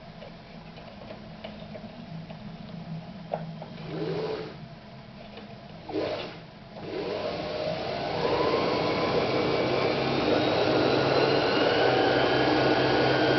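Victoria 124 sewing machine's electric motor driving the bobbin winder, with the handwheel released so only the winder turns. Two brief pulses about four and six seconds in, then it runs up from about seven seconds into a steady whir with a rising whine.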